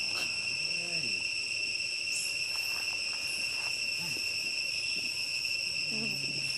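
Insects trilling in a steady, unbroken high-pitched drone.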